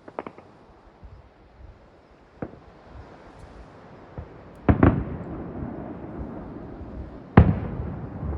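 Aerial fireworks shells bursting: a few light pops, then a loud double bang about halfway through and another loud bang near the end, each trailing off in a long rumble.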